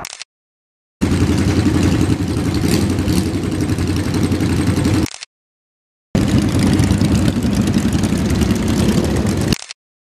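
Motorcycle engines running steadily, heard in two stretches cut apart by short silent gaps.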